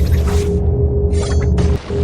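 Background music: an instrumental passage with heavy bass and a held tone, overlaid with noisy swish effects. It cuts out briefly near the end, then resumes.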